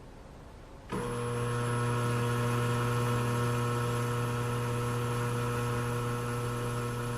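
Steady machine hum of a high-speed water tunnel running, starting suddenly about a second in and holding an even pitch.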